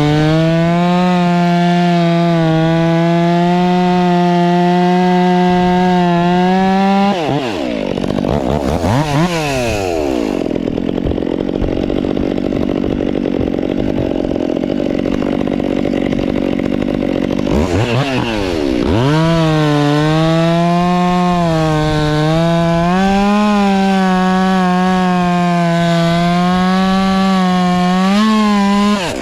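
Stihl 362 two-stroke chainsaw with an Egan Straight Shot performance muffler, running loud at full throttle, plausibly in a cut. About seven seconds in the revs drop and are blipped, the engine runs lower for several seconds, and it climbs back to full throttle about nineteen seconds in, holding there until it drops off near the end.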